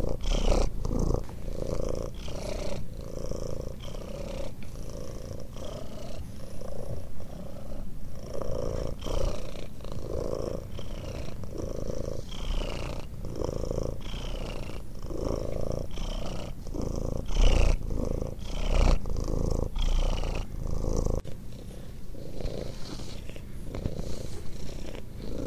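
Ginger Cornish Rex cat purring loudly, the purr swelling and easing over and over as it breathes in and out.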